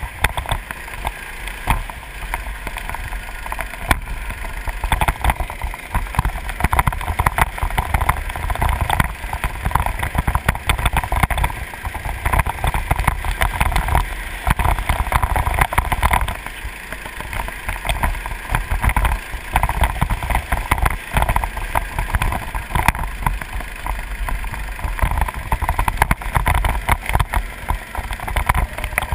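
Go-kart engine running hard through a lap, heard from the kart itself, with wind buffeting the onboard microphone into a constant rough rumble.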